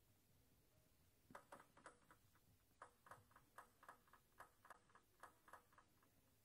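Celluloid-type table tennis ball bounced on the tabletop again and again, faint quick light taps in groups of about four, the server's routine before serving.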